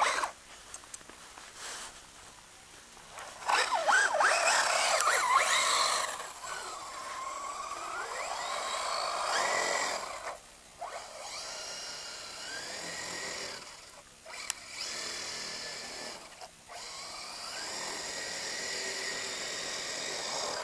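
Brushless electric motor and gear drivetrain of an electric-converted RC buggy (Savöx 1800kv motor on a 4-cell LiPo) whining, its pitch rising and falling with the throttle. It is loudest in a burst about three and a half seconds in and drops out briefly three times in the second half.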